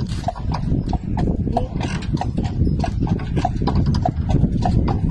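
A horse's hooves clip-clopping at a steady walk, about three hoof strikes a second, over a low rumble.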